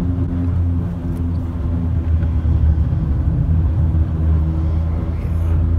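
Car tyres running over a truss bridge's steel grid deck, heard from inside the car: a steady low drone.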